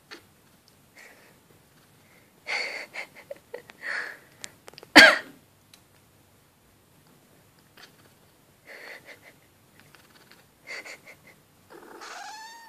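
A person coughing in several short bursts, the sharpest and loudest about five seconds in. Near the end a Shiba Inu answers with a whine that rises in pitch.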